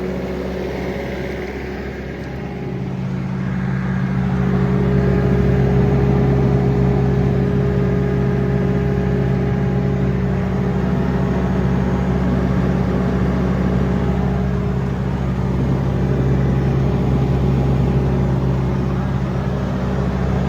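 Bobcat T550 tracked skid steer's four-cylinder turbo diesel engine running, growing louder a few seconds in and then holding at a steady speed.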